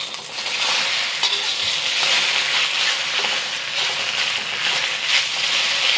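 Fresh rice noodles sizzling in hot avocado oil in a wok as they are stir-fried, a steady frying hiss with small irregular crackles.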